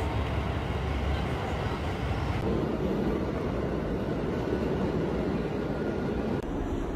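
Steady rumbling subway train noise, changing abruptly in character twice.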